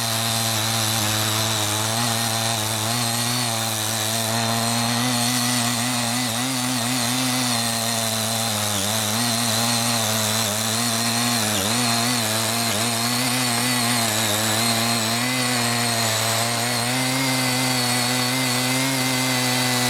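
The 50cc Maruyama NE500 engine of a CY50 mini tiller running steadily under load while its rotary tines loosen soil, the engine note wavering slightly in pitch as the load changes.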